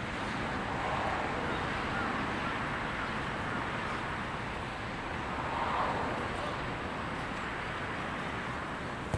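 Outdoor wind noise on the microphone, with faint distant shouts from players calling out across the pitch, louder about a second in and again near six seconds.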